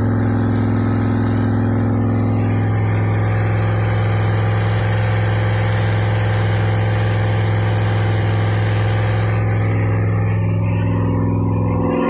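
Freshly rebuilt Pontiac 350 V8 engine running at a steady, unchanging speed.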